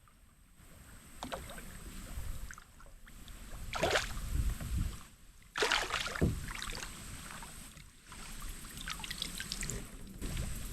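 Water splashing and knocking around a kayak as a hooked fish is fought up to the boat, in several separate bursts, the loudest about four and six seconds in.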